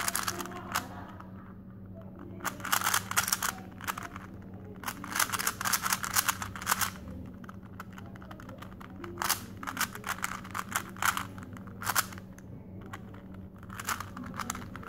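A plastic 3x3 Rubik's Cube being turned fast by hand: quick runs of clicking and clacking as the layers snap round, in bursts with short pauses between. This is the last layer of the solve being worked.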